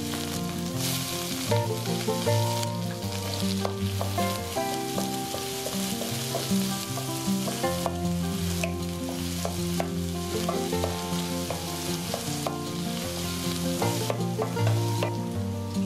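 Green chillies and chopped onion sizzling as they fry in a stainless steel kadai, with a steady hiss. A wooden spatula stirs them, scraping and tapping against the metal pan many times.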